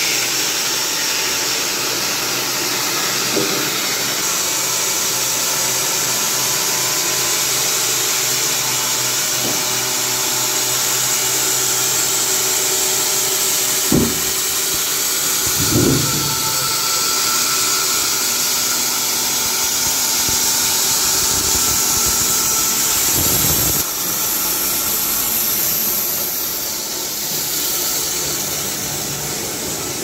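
Carpathian SMSA 110 band sawmill running, its electric-driven band blade cutting lengthwise through a log with a steady whirring hiss. There are a few short thumps, twice in the middle and once more a little later.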